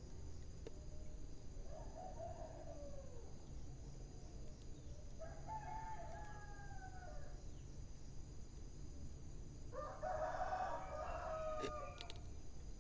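A rooster crowing three times, about four seconds apart, the last crow the loudest, over a steady low background hiss. A couple of sharp crackles come near the end.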